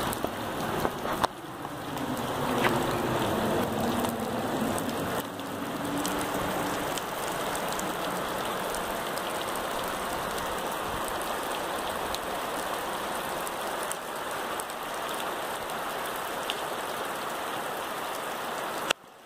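Steady rain falling on bare muddy dirt and shallow puddles, an even hiss of rain with scattered individual drops splashing.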